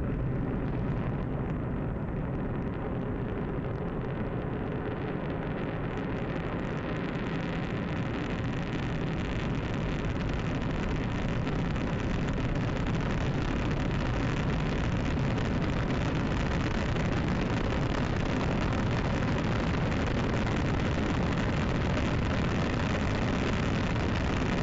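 Long March 2D rocket's first-stage engines igniting and running at full thrust through liftoff and ascent: a loud, steady rumbling noise that starts suddenly and grows a little louder from about ten seconds in.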